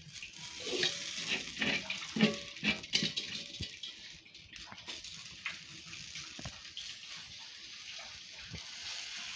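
Batter dumplings sizzling steadily in the cups of a paniyaram pan, with scattered clicks and scrapes of a metal spoon against the pan as they are turned.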